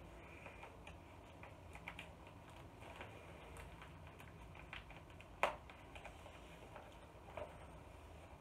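Faint clicks and crinkles of a small plastic package being worked open by hand, with one sharper click about five and a half seconds in.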